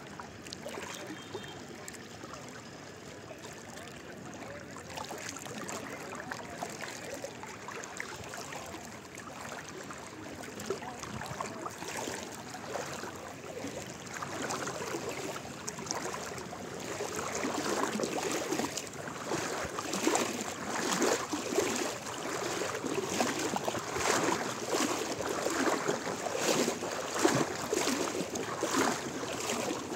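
Seawater sloshing and lapping right at the microphone, which is held just above the surface. Many small irregular splashes that grow louder about halfway through.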